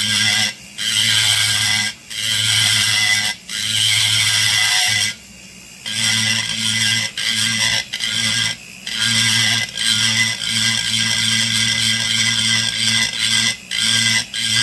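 Foredom flexible-shaft rotary tool spinning a burr against a soft chainsaw crankcase, cutting in passes broken by short pauses. The passes last one to two seconds at first. After a longer pause a little past five seconds they come shorter and quicker.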